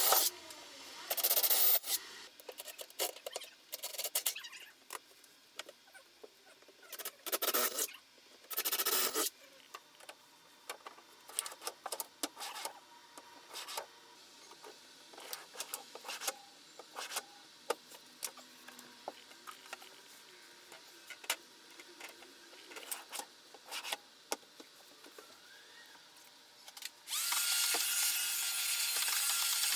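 Woodworking shop handwork on a rubberwood bed: scattered short rubbing and scraping strokes and light knocks. Near the end, a power drill runs steadily for about two and a half seconds.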